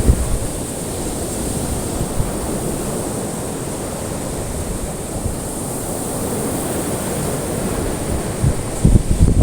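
Ocean waves washing on a shore, a steady rushing, with wind buffeting the microphone in low gusts near the end.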